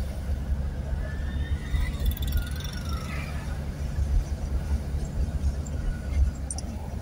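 Car driving along a town street, heard from inside the cabin: a steady low rumble of engine and road noise.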